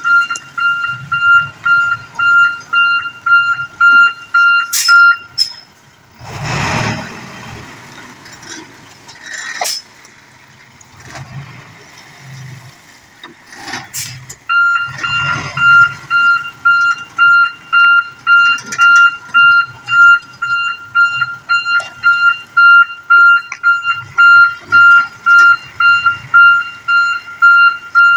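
Dump truck's reversing alarm beeping at about two beeps a second over the low running of its diesel engine. The beeping stops for several seconds, during which a loud hiss of about a second and a half is heard, then starts again.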